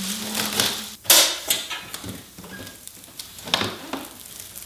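Plastic wrapping rustling and crinkling as it is handled and pulled about, with some cardboard packaging noise; the loudest rustle comes about a second in, and another near three and a half seconds.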